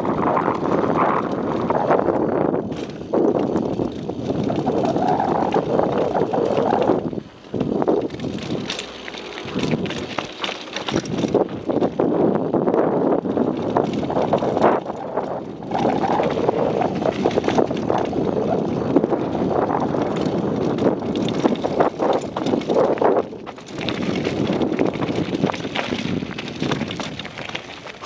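Downhill mountain bike riding down a dirt and gravel trail: wind rushing over the microphone, with tyres crunching on gravel and the bike rattling and knocking over bumps. The noise drops away briefly a few times.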